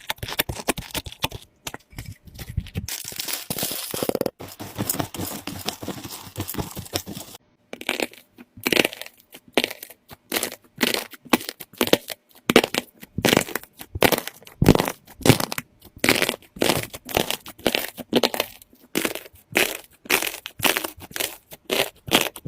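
Slime being squeezed and pressed by hand, giving crackling, crunching clicks. The first seven seconds or so are a dense crackle; after that the squeezes come as separate crunches, about two a second.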